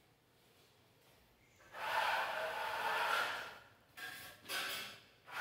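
Steel trowel scraping across a wall, spreading and burnishing a burnt-cement effect coating. One long rasping stroke starts about two seconds in, followed by two short strokes.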